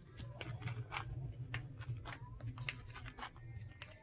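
Low, steady hum of a store interior with scattered small clicks and taps at irregular intervals, several a second.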